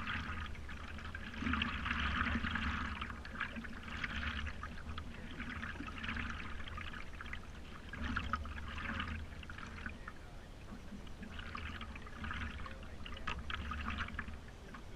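Water sloshing and trickling around the nose of a stand-up paddleboard being paddled along, swelling about every two seconds with the paddle strokes, over a low rumble.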